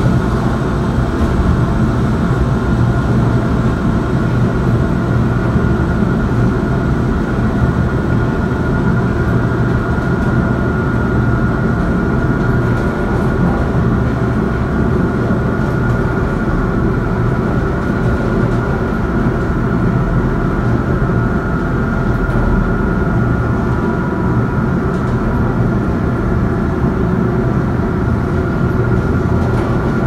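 Elevator car travelling down its shaft: a steady, loud rumble with a faint high whine held over it.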